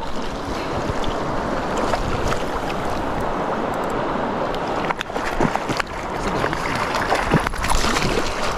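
Steady rush of flowing river water mixed with wind on the microphone, with a few short clicks in the second half.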